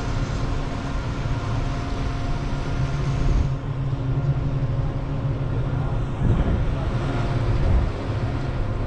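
Electric hybrid car ferry under way: a steady machinery hum with several held tones over a low rumble.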